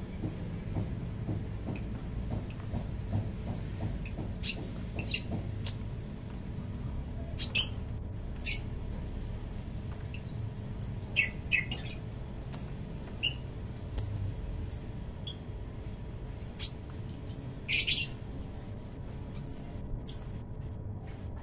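Kolibri ninja (Van Hasselt's sunbird) giving short, sharp, high-pitched chirps, singly and in quick pairs at irregular intervals, with a louder burst about three-quarters of the way through.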